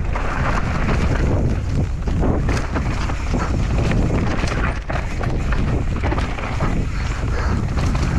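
Mountain bike descending a rough trail: heavy wind rumble on the microphone over the noise of the tyres on dirt, with frequent short knocks and rattles from the bike.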